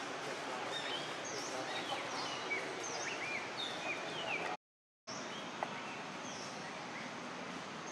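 Outdoor forest ambience: repeated short, high bird chirps that dip and curve in pitch, over a steady background hiss. The sound cuts out completely for about half a second a little past the middle, then the hiss resumes with fewer calls.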